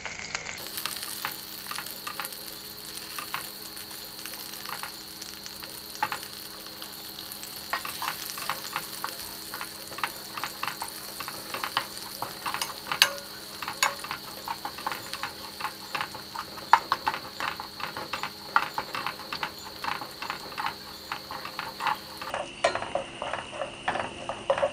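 Garlic, ginger, dried chillies and hotpot paste sizzling in hot oil while a ladle stirs them, clicking and scraping against the stainless steel pot many times at an uneven pace.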